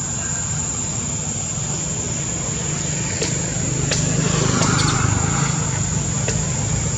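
Steady outdoor background noise with a low rumble and a constant thin high-pitched tone, with a few faint clicks; it grows a little louder about four seconds in.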